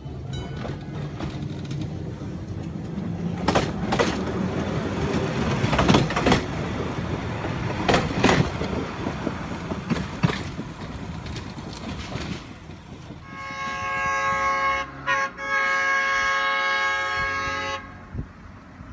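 Narrow-gauge Planet locomotive running past with rumbling and irregular clanks. From about 13 seconds it sounds a multi-note horn chord for several seconds, with a brief break near the middle.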